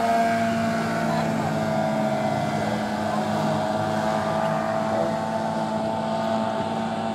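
Outboard motors of racing boats running at high speed, a steady engine whine as the boats plane past.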